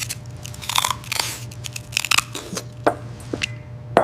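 Crispy fried chicken crunching and crackling in a series of short, sharp crunches as it is bitten or broken apart, with a steady low hum underneath.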